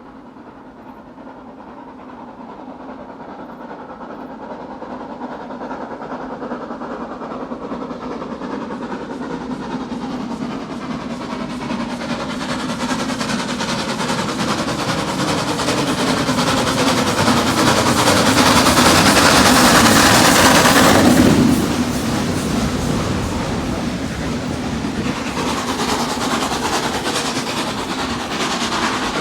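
S&DJR 7F 2-8-0 steam locomotive 53808 working hard as it pulls away, its exhaust growing steadily louder as it approaches. It is loudest about twenty seconds in, then drops off sharply, and the train keeps rolling past with a clickety-clack of wheels.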